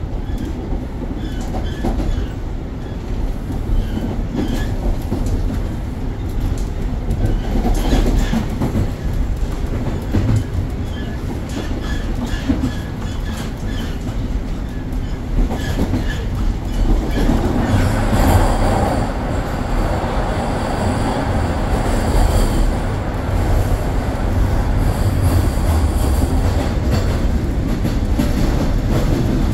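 Toronto subway train running through a tunnel, heard from inside the car: a steady rumble with occasional clacks of wheels over rail joints. A little past halfway, a high, steady wheel squeal joins and lasts to the end.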